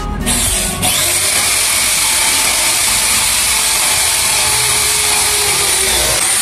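Corded electric drill from The Black Tools boring through a metal plate with an 8 mm bit, its motor running steadily under load. The noise steps up just under a second in and stops just before the end.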